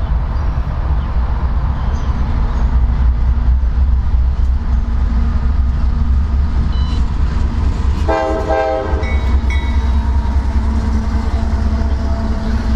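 Freight train passing, a loud steady rumble of wheels and locomotive, with one short horn blast about eight seconds in.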